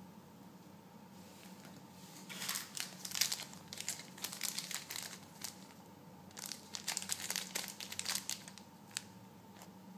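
Small clear plastic zip-lock bag crinkling as it is handled, in two spells of rustling: from about two seconds in to about five seconds, and again from about six to eight seconds.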